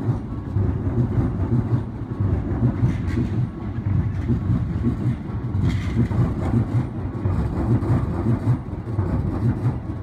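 An electric commuter train on the Keikyu Line passing close by at a level crossing: a loud rumble of wheels on the rails with a rapid pulsing clatter.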